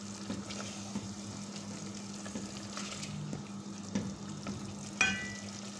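Chicken and onion-tomato masala sizzling in a metal pot while being stirred, the sauce's water cooking off until it is dry. Small clicks of the spoon in the pot over a steady low hum, with a sharper scrape and brief squeal about five seconds in.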